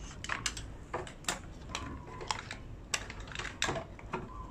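Scattered light clicks and taps, irregularly spaced, from a multimeter and its probe leads being handled and pressed against an electric scooter's charging port.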